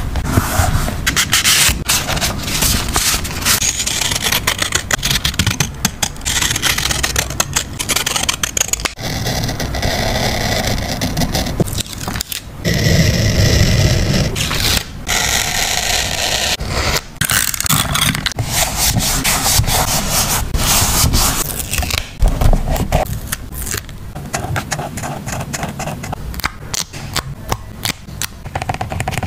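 Close-up paper-craft handling on a journal page: paper and stickers being handled, with many short sharp clicks and a few longer stretches of rubbing noise.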